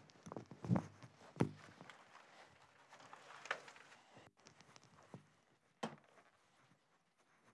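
Faint footsteps and a few scattered knocks and thumps in a quiet room, the loudest about a second and a half in.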